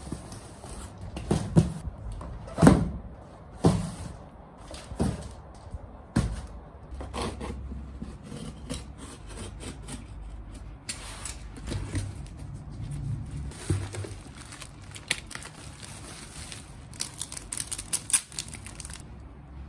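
Album packages being handled and unpacked on a surface. A run of soft knocks comes in the first six seconds, then rubbing and scraping, with quick crackling rustles near the end.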